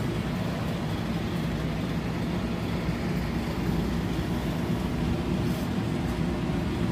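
A steady low rumbling hum with a hiss above it, unchanging throughout.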